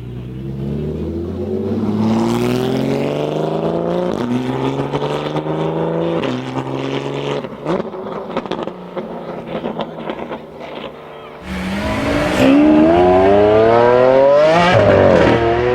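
Porsche 992 GT3 RS's flat-six with a SOUL exhaust accelerating hard, its pitch rising and dropping back at two upshifts, then lifting off with a run of pops and crackles. It comes back on the throttle and climbs to a loud, high-revving pass-by, the pitch bending down as it goes past near the end.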